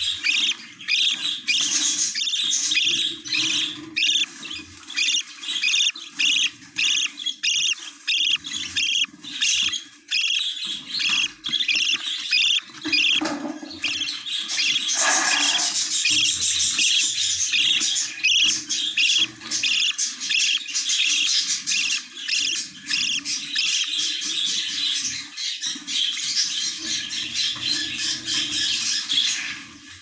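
A brood of budgerigar chicks in a nest box calling together: a continuous chorus of rapid, repeated high squawking chirps that cuts off at the very end.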